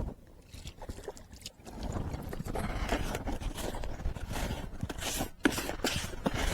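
Hands mixing and kneading damp fishing groundbait in a bowl, irregular scraping and rustling strokes that grow busier about two seconds in.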